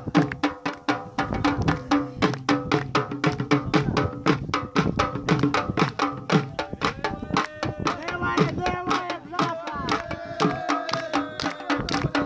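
Pashtun Attan folk music led by a drum: fast, steady drumbeats, with a melody gliding over them in the second half.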